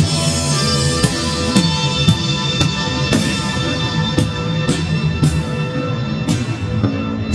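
Rock music with a drum kit keeping a steady beat of about two hits a second under sustained chords.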